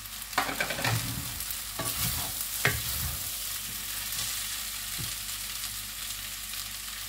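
Wooden spatula stirring sabudana (tapioca pearl) khichdi with peanuts in a metal frying pan, scraping and knocking against the pan a few times, over a steady sizzle of frying.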